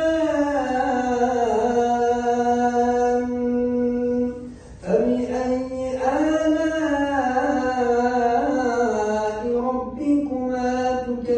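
A man's voice reciting the Quran in the melodic tajweed style, drawing out long held notes that rise and fall in pitch. A short break for breath comes a little before halfway, then the recitation resumes.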